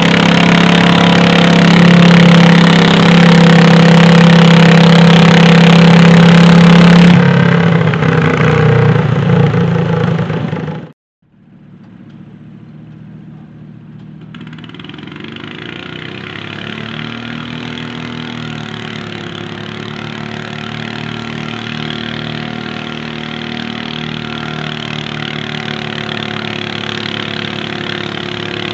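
Garden pulling tractor's engine running at full throttle under load as it drags a weight-transfer sled, loud and steady, then easing off about seven seconds in. After a brief gap near the middle, engines run more quietly and farther off.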